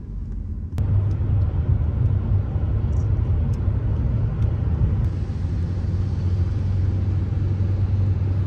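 Steady low rumble of a car driving along a road, heard from inside the cabin, with road and engine noise. It gets louder about a second in.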